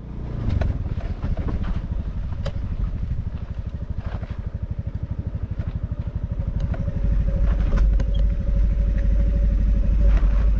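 Motorcycle engine running steadily at low speed, with a few scattered knocks and rattles. A heavier low rumble comes in about two-thirds of the way through.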